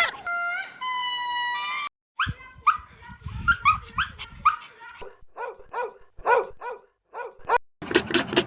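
A dog whining and yelping in separate short clips: a long, high held whine, then a quick string of short falling yelps, then short cries about twice a second. Near the end a louder, rougher sound of another kind cuts in.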